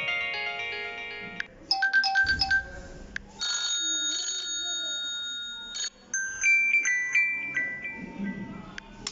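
Honor 9X preset ringtones playing one after another: short electronic melodies, each stopping after a few seconds as the next begins, with about four different tunes heard in turn.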